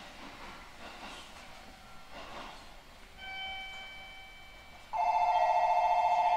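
An electronic bell or buzzer starts ringing suddenly about five seconds in, loud and trilling, over quieter background noise aboard a 311 series train. A fainter steady tone sounds briefly about three seconds in.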